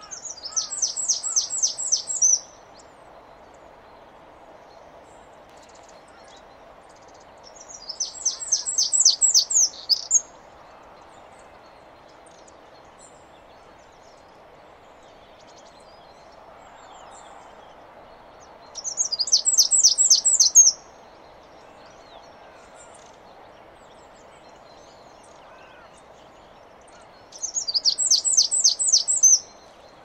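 Eurasian wren giving four bursts of rapid, evenly repeated high notes, each about two seconds long, spaced several seconds apart.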